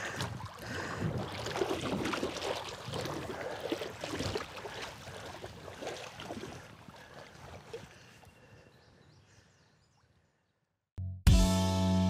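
Water sloshing and splashing around a wader's legs as he walks through a river, fading away over several seconds. About a second before the end, a distorted electric guitar starts loudly.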